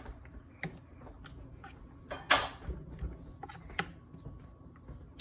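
Metal fork handling raw pork chops on a cutting board: scattered light clicks and taps, with one louder scrape a little over two seconds in.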